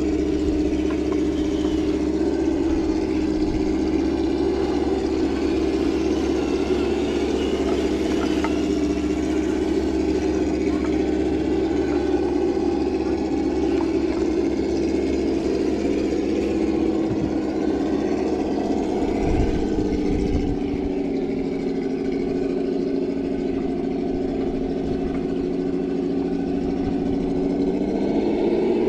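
Traxxas TRX-4 Defender scale RC crawler's electric motor and gearbox whining steadily at crawling speed, the pitch dipping a little past the middle and rising near the end as the throttle changes.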